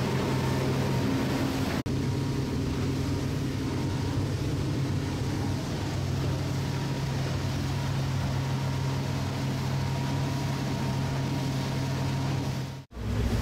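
Motorboat engine running steadily at speed, with water and wind hiss, heard from on board. It drops out for an instant about two seconds in and again near the end.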